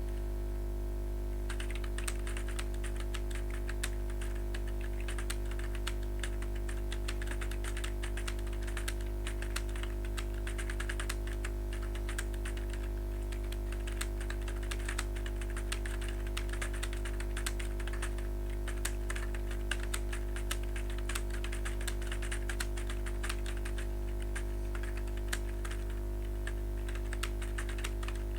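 Fast, continuous typing on a computer keyboard, a rapid stream of key clicks starting about a second and a half in, during a timed Hindi typing speed test. A steady low hum runs underneath.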